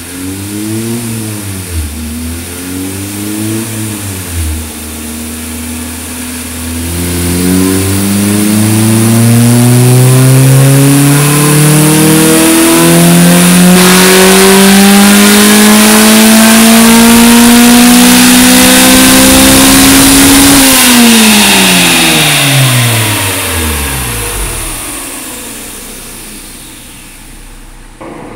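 Naturally aspirated DOHC Honda four-cylinder, rear-mounted in an EF Civic hatchback, on a chassis dyno: three quick revs, then a full-throttle dyno pull with the pitch climbing steadily for about fourteen seconds and the note changing partway up. At the top the throttle is lifted and the engine and rollers wind down over a few seconds.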